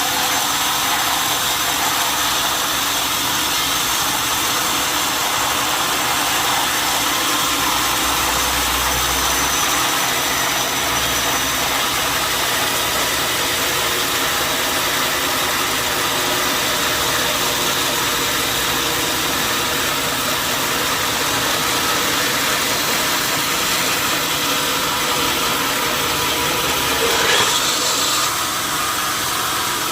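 Sawmill machinery running steadily, a continuous mechanical noise with a brief louder sound near the end.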